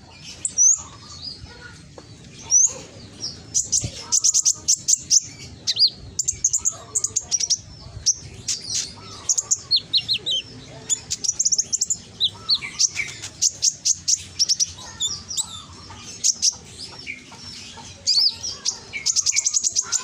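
Kolibri ninja (konin), a sunbird, singing loudly: rapid strings of high, sharp chirps and quick trills in phrases with short gaps between them. It is a lure song, meant to set other konin birds singing in reply.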